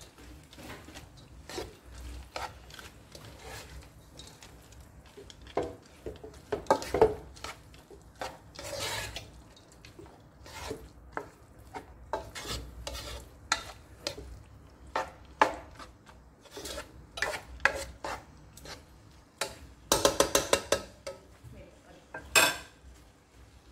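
Black spatula stirring and tossing noodles with corned beef and vegetables in a stone-coated nonstick pan: irregular scrapes and clicks against the pan. There is a quick run of clatters about twenty seconds in and a single sharp knock near the end.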